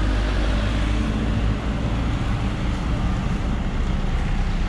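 A motor vehicle engine running steadily nearby, a low rumble with a steady hum in it, over a wash of outdoor noise.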